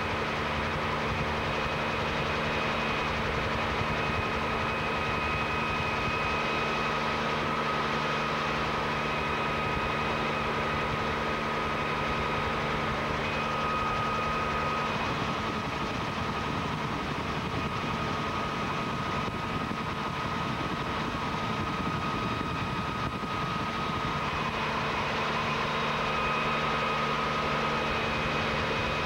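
Steady drone of a tour helicopter's engine and rotors heard from inside the cabin, with a few steady hum tones over a rushing noise. From the middle of the stretch the low hum gives way to a rougher rumble for several seconds, then returns.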